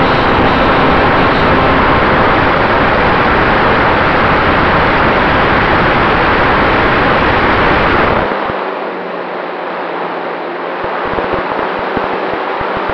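Wind rushing over the onboard camera of a radio-controlled Cessna 188 model plane in flight, mixed with the noise of its motor and propeller. About eight seconds in the noise drops sharply as power comes off for a low approach, leaving a lighter rush and a steady low hum.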